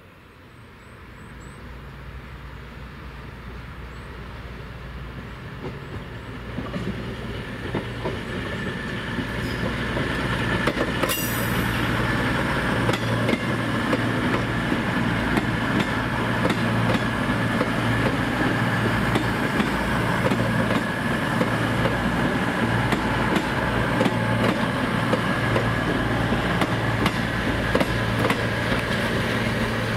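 Quiet train noise at first, then a CrossCountry Voyager diesel multiple unit running past close by. Its steady engine hum and a high whine ride over the wheels clicking on the rails, growing louder over the first dozen seconds and then holding steady.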